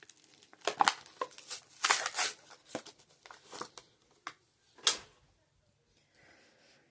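Hot Wheels blister pack being handled and torn open: irregular crinkling of plastic and card, with a few sharper rips about one, two and five seconds in.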